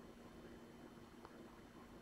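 Near silence: a faint steady hum of room tone, with one faint tap about halfway through.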